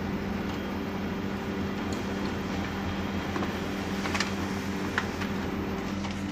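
HP LaserJet P2035 laser printer running a test print: a steady motor hum with a light whine, and a few short clicks of the paper path, the loudest about four and five seconds in. One tone of the hum stops near the end.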